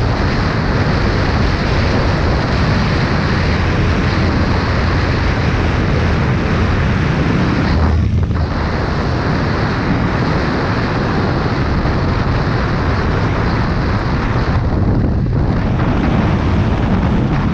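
Wind rushing over the microphone of a Yamaha motorcycle riding at highway speed on a wet road, with engine and tyre noise underneath. The rush dips briefly twice, about eight and fifteen seconds in.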